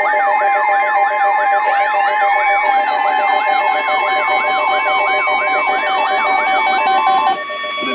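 Layered electronic sirens: a yelp siren sweeping up and down about three times a second over a fast alternating two-tone hi-lo, with another tone gliding up and then holding steady. The yelp and the hi-lo cut off about seven seconds in, leaving only steady tones.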